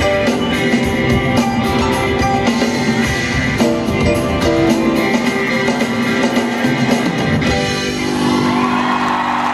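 Live pop-rock band with singing, guitar and drums playing the closing bars of a song. About seven and a half seconds in the drums stop on a held final chord and audience applause and cheering start to rise.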